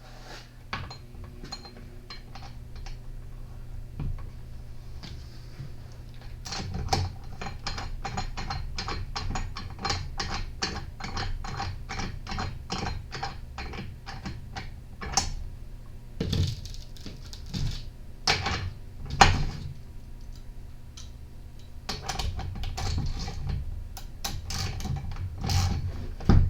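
Ratchet and socket clicking steadily, about three clicks a second, while a spark plug is changed on a Stihl FS40E trimmer engine. Scattered clicks and knocks of tool handling follow.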